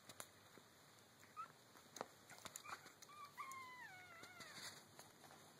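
Chihuahua puppy whimpering faintly: a short high squeak about a second and a half in, then a drawn-out falling whine around the middle, over scattered soft clicks.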